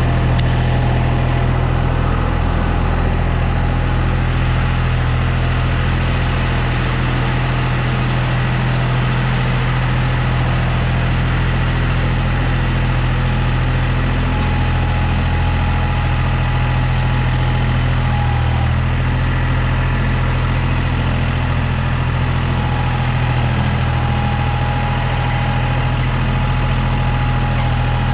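John Deere backhoe's engine idling steadily with a low, even drone. A thin steady whine joins it about halfway through.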